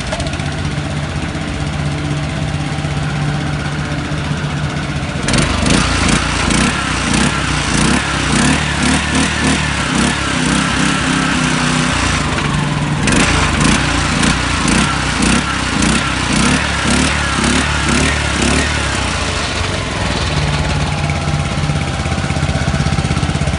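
Subaru small petrol engine of a swamp boat motor idling, then revved up and held for several seconds, eased off briefly, revved again, and dropped back to idle near the end.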